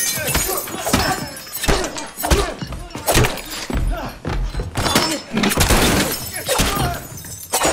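Film fight sound effects: a rapid run of blows and thuds with glass display cases shattering and breaking, several hits a second.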